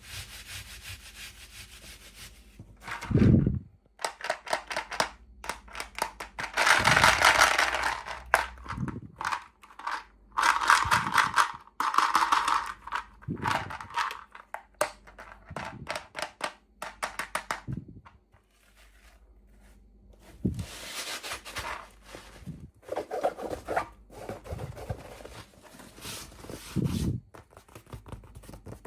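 Hands unboxing miniature toys: rubbing, scraping and tearing of packaging, with many small clicks and a few louder scratchy bursts.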